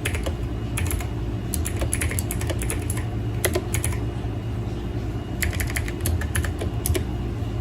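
Typing on a Logitech G715 mechanical gaming keyboard: rapid clacking keystrokes in several bursts with brief pauses between them.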